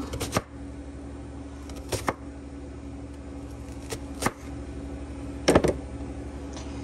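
Kitchen knife dicing an onion on a cutting board: short, sharp strikes in small irregular clusters, the loudest near the end, over a steady low hum.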